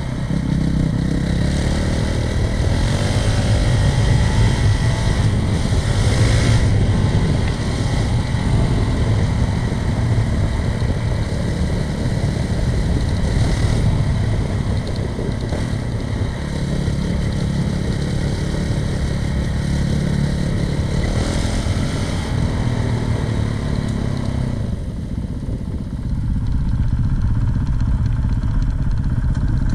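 Honda CRF450RL dirt bike's single-cylinder four-stroke engine running under way on a dirt trail, its note rising and falling with the throttle.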